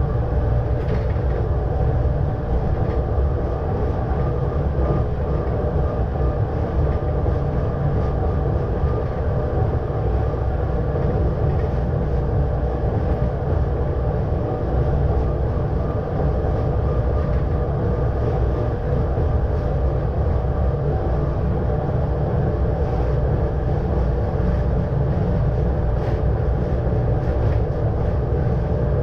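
ČSD class EM 29.0 rack-railway electric multiple unit running along the line, heard from the driver's cab: a steady low rumble of the running gear with a constant whine of several steady tones over it.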